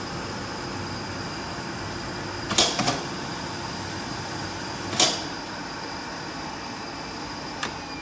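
Steady hum of machinery in a jeans-processing workshop, broken by sharp clacks: two close together about two and a half seconds in, a louder one about five seconds in and a faint one near the end.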